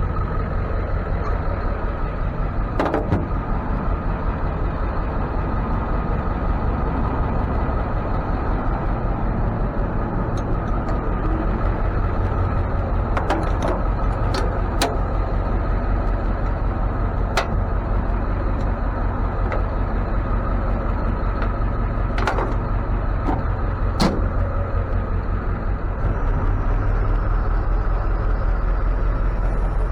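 Tow truck driving along, a steady low engine and road rumble with scattered sharp clicks and knocks, a little louder near the end.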